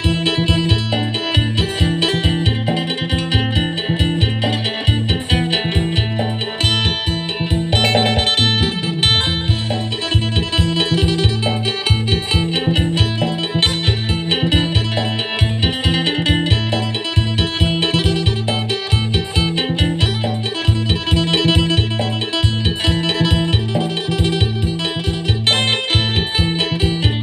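Acoustic phin, the Isan Thai plucked lute, played in the fast, lively 'phin sing' style: a bright run of quickly plucked notes over a steady, repeating low bass pulse.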